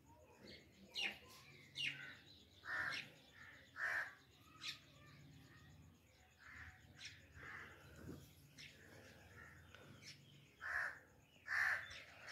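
Crows cawing outdoors: a string of short caws in the first five seconds, a couple more midway and two near the end, with faint chirps of smaller birds between.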